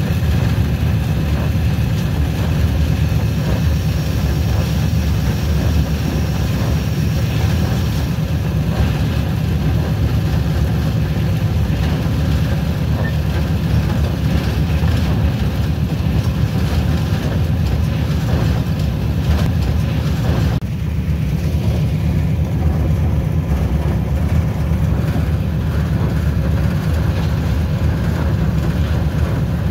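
A train's diesel locomotive engine running steadily while under way, heard from the front of the train as a deep, constant rumble with a hiss of running noise above it. The rumble eases briefly about two-thirds of the way through.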